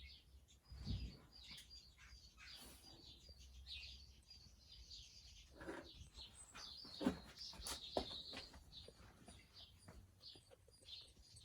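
Small birds chirping faintly in the background, short high chirps repeating throughout, with a few soft knocks and clicks scattered among them.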